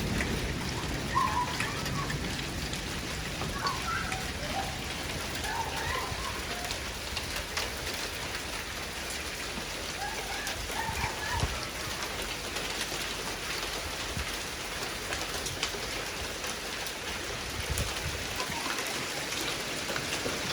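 Steady rain falling on surfaces, with many scattered sharp ticks of drops, during a thunderstorm. The tail of a thunder rumble fades out in the first second, and a few short chirps sound in the first several seconds and again about ten seconds in.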